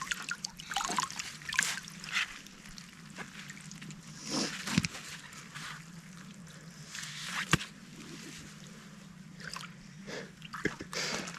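Lake water sloshing, trickling and dripping in irregular splashes, as a landed carp is handled in the shallows and shifted from the landing net into a retaining sling.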